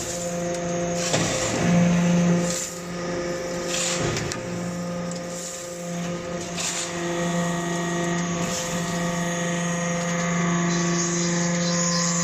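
Metal-chip briquetting press running: a steady machine hum at constant pitch, with a few sharp clicks and knocks.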